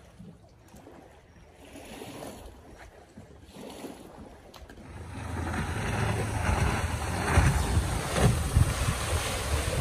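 Faint lakeside ambience, then about five seconds in a loud, gusty rush of wind buffeting the microphone over moving water.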